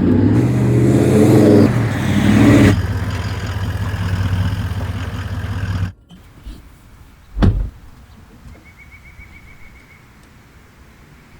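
A vehicle engine running, which stops abruptly about six seconds in; then a single thump in the quiet that follows.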